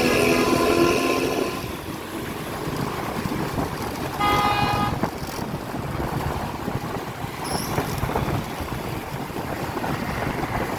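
Hino AK8 front-engine bus running, its exhaust giving a rough, raspy rumble, with some wind on the microphone. A horn sounds for about a second and a half at the start, and again briefly about four seconds in.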